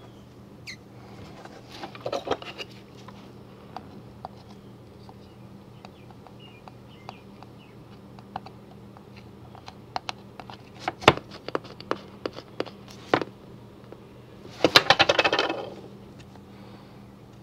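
Hands rubbing vinyl transfer tape down onto a plastic disc golf disc to press out air bubbles: scattered scratchy rubs and small clicks, with a denser run of clicks partway through and a louder burst of rapid crackling near the end as the disc is handled. A faint low hum runs underneath.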